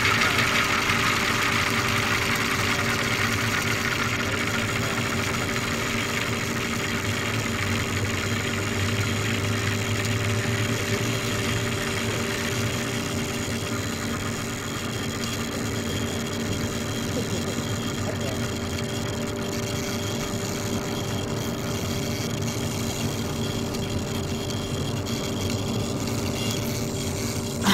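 Engine of a camera-carrying RC helicopter running steadily on the ground, picked up close by its onboard camera; the pitch holds level throughout.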